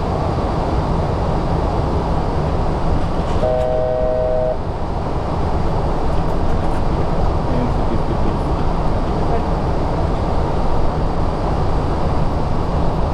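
Steady cockpit noise of a Boeing 737-800 in the climb, airflow and engine noise. About three and a half seconds in, a short electronic tone sounds for about a second.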